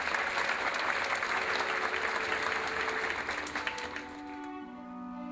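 Audience applauding, dying away about four seconds in as an orchestra starts playing soft, long held notes.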